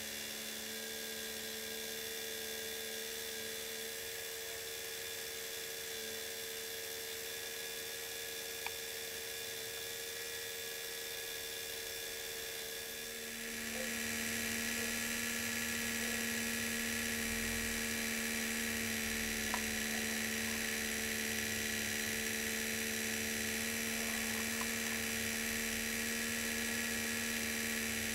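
Steady whine of small electric motors on a model railway layout. About halfway through it grows louder and a lower hum joins as the model chairlift's drive runs close by, its chairs moving along the cable.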